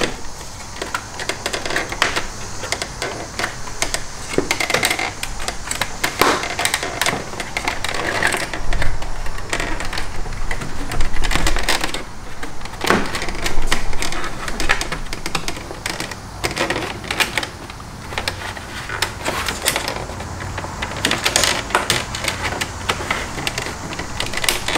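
Plastic kidney grille being worked out of a car bumper: irregular clicks and rattles as its retaining tabs are pressed down and the grille is pulled and jiggled free.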